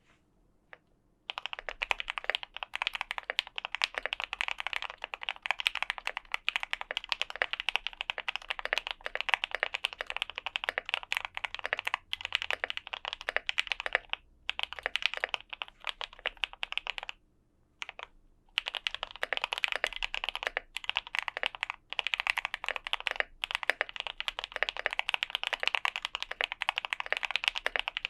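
Fast continuous typing on a custom Tofu60 60% mechanical keyboard with lubed and filmed Gateron Ink Black linear switches, a polycarbonate plate and sound-dampening foam in the case. The keystrokes start about a second in and run in quick dense strings, broken by a few short pauses.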